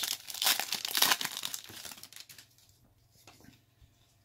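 Crinkling and rustling of a baseball-card pack's wrapper as it is torn open and the cards are handled. The sound is loud for about two seconds, then trails off to faint shuffling of the card stack.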